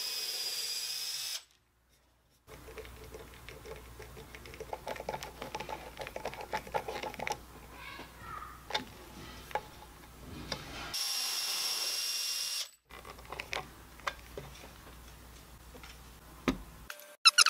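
A cordless drill runs briefly at the start and again about eleven seconds in. Between the two, small clicks and scrapes as a hand screwdriver turns a strap-button screw into a wooden guitar body.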